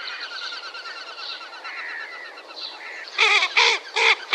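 Common goldeneyes flying over: the rapid, pulsing whistle of their wing feathers, then from about three seconds in the loud, rasping calls of females, repeated about three times a second.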